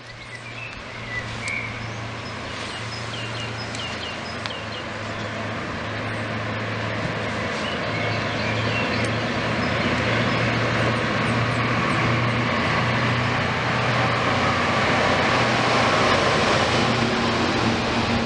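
Two ÖBB Class 2016 diesel-electric locomotives running in tandem at the head of a freight train, approaching and drawing level. Their engines make a steady low hum that grows steadily louder as they near.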